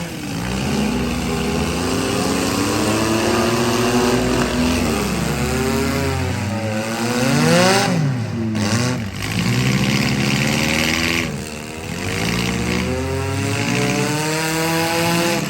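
Several compact and midsize car engines in a demolition derby revving at once, their pitches rising and falling as the cars accelerate and back off, with the sharpest rev about seven seconds in.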